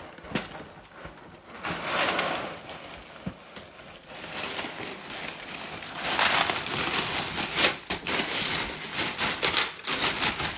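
Dry breakfast cereal being poured from its box into a large pan, a dense rustle of many small pieces clicking and rattling together, busier and louder from about halfway through.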